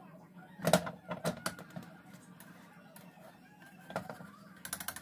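Plastic spatula knocking and scraping against a nonstick frying pan while a pancake is turned: a few sharp clicks, the loudest about a second in and a quick run of them near the end, over a low steady hum.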